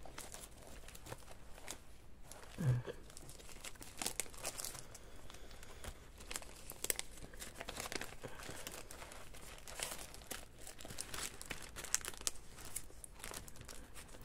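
Paper rustling and crinkling as loose pieces of paper ephemera are sorted through and handled, with many small rustles and taps throughout. A brief low sound about three seconds in stands out as the loudest moment.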